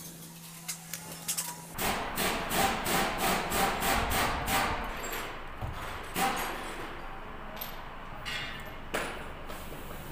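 A quick run of hammer taps, about four a second for roughly three seconds, starting about two seconds in. Later come a single knock and a few light clicks as small metal parts are handled.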